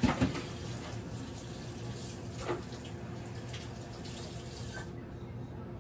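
Kitchen tap running into the sink as raw Cornish hens are rinsed under it, with a knock at the start and another about halfway through. The water shuts off near the end.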